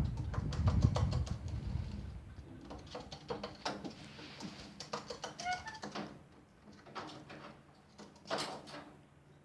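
A chihuahua licking a sphynx cat: quick, wet licking and smacking clicks throughout, with a low rumble in the first two seconds and a brief high squeak about five and a half seconds in.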